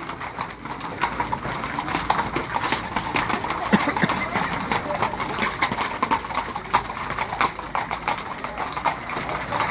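Many horses walking on a paved street, their hooves clip-clopping in an irregular, overlapping patter, with people's voices in the background.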